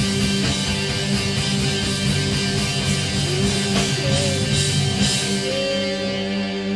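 Rock band playing an instrumental passage: guitars and drums with a steady beat, and sliding guitar notes in the second half.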